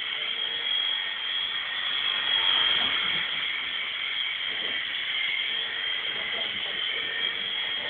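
Picoo Z Sea King mini RC helicopter flying, its tiny electric motors and rotors giving a steady high-pitched whine.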